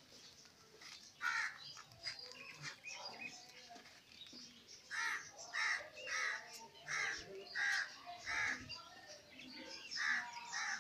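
A crow cawing. There is one caw about a second in, then a run of six caws a little over half a second apart from about halfway through, and more caws near the end. Faint chirping of small birds runs underneath.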